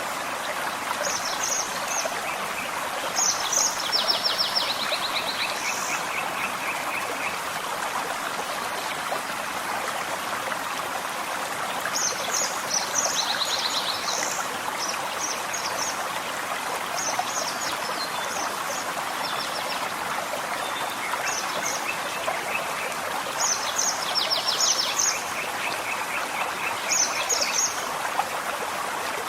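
Forest stream running steadily. Small songbirds sing over it in several spells of quick high chirps and short rapid trills.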